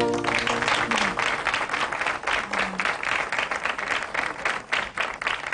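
Audience applauding, a dense steady clapping that breaks out as the last guitar chord of the fado dies away at the start.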